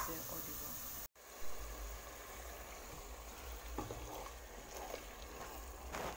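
Sliced onions sizzling in hot oil in a pan. About a second in the sound cuts off abruptly. After that comes a quieter, steady sizzle and bubbling from the pan of blended tomato mixture cooking down.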